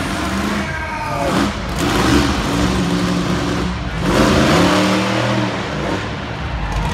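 Monster truck engine revving hard several times, its pitch climbing and dropping with each burst of throttle.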